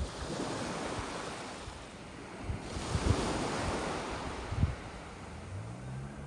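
Sea waves washing onto the shore, surging twice, with wind buffeting the microphone. Near the end a low motor hum rises in.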